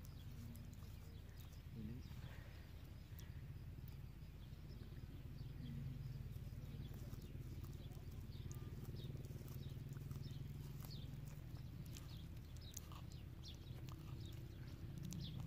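Tortoise biting and chewing clover leaves: a scatter of small, crisp crunching clicks, coming more often in the second half, over a steady low hum.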